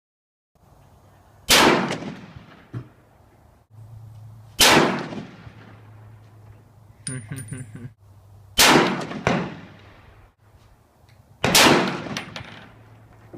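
Four gunshots fired at a slow, steady pace, three to four seconds apart, each followed by a ringing echo that dies away.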